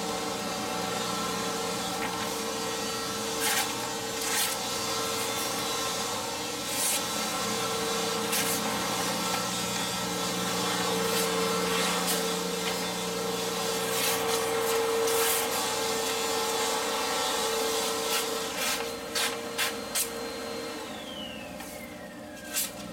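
A vacuum cleaner runs in the background with a steady motor hum while a fixed-blade knife slices through sheets of paper in short, rasping cuts, the factory edge not cutting cleanly. Near the end the vacuum switches off and its motor whine falls away.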